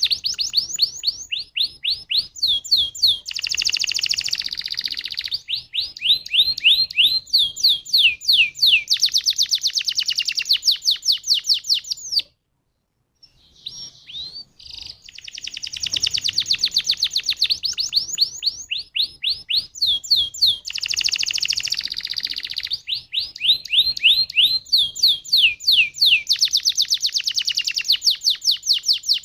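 Canary singing long rolling song phrases of rapid trills and repeated sweeping notes, in two long bouts with a short break about twelve seconds in.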